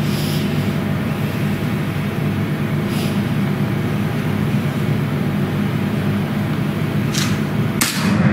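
Steady low mechanical hum with a faint hiss above it, broken by a few short, soft clicks: one about three seconds in and two near the end.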